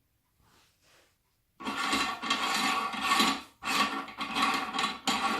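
Rubbing and scraping from handling the meat grinder's parts and packaging. It starts about one and a half seconds in and comes in three long stretches.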